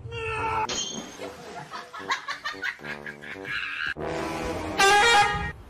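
Music, changing about four seconds in, with a loud pitched sound shortly before the end.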